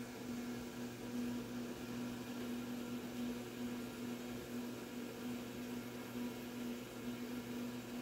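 Steady low mechanical hum with a faint even hiss, as of a household appliance or fan running, unchanging throughout.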